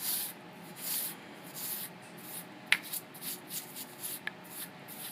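A brush sweeping metal chips off a freshly milled workpiece: a string of short swishing strokes, a little over one a second, with two sharp clicks, one a little past halfway and another about a second and a half later.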